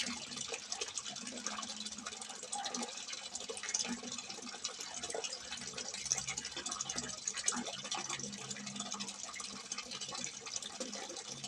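Water pouring steadily from a simple spout and splashing, a continuous dense trickle with fine drips.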